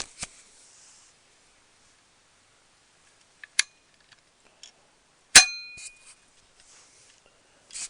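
A hard drive's strong actuator magnet being clipped back into its metal bracket: a few sharp metallic clicks, the loudest about five seconds in, ringing briefly.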